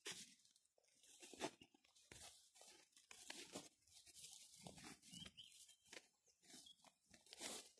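Near silence with faint, irregular rustles and soft crunches.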